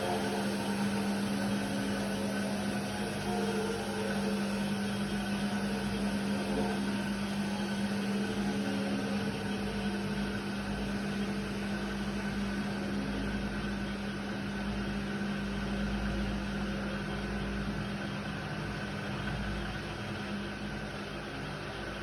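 Indesit WIDL 106 washer-dryer running with a steady motor hum and whir that eases slightly near the end.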